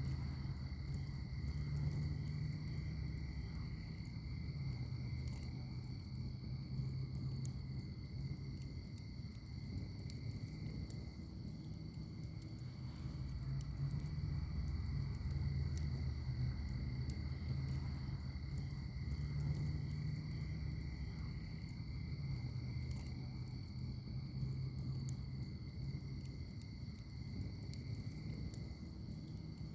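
Wood fire in a firepit crackling with scattered sharp pops over a low rumble, while insects trill steadily in the background as two unbroken high tones.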